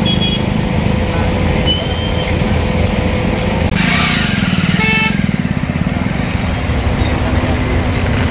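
Road traffic: vehicle engines running close by, a steady rumble, with a short horn toot about five seconds in.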